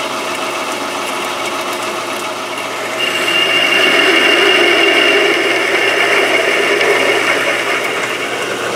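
Metal lathe running while a twist drill cuts into a spinning steel plate. About three seconds in, the cut gets louder and a steady high whine comes in.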